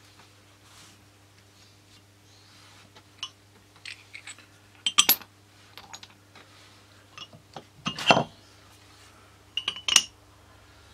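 Heavy metal weight blocks being set down and stacked, clinking and knocking against each other: scattered sharp knocks, a loud double clink about five seconds in, a heavier thud about eight seconds in and a pair of clinks near the end. The weights are pressing a glued balsa tail fin flat so the water-based glue does not warp it as it dries.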